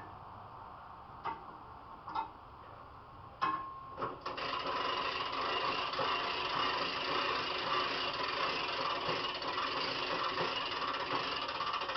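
Hand-cranked lifting winch with a handbrake lowering a load on its cable. A few separate clicks come first, then about four seconds in a steady mechanical whirring of the gears and brake starts.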